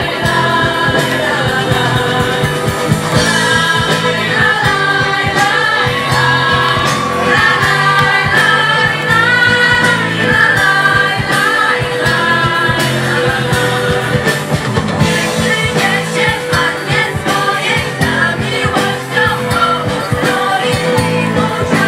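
Youth choir of girls singing a song together, backed by a live band of guitars, bass, drums and keyboard.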